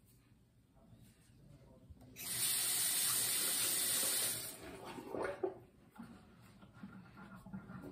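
Sink tap turned on, water running for about two seconds, then shut off.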